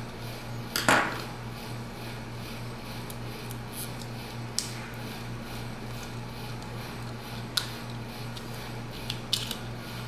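Scattered small clicks and taps of fingers and a small screwdriver on a tablet's plastic case, ribbon cables and circuit board, the loudest about a second in. A steady low hum runs underneath.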